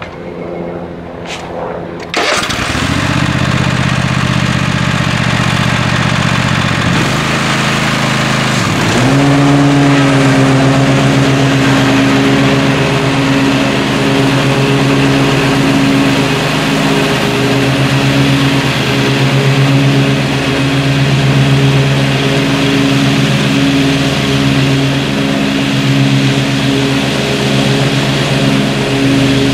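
A zero-turn riding mower's engine starts about two seconds in and runs; after a brief dip a few seconds later it settles into a higher, steadier note as it is throttled up and mows.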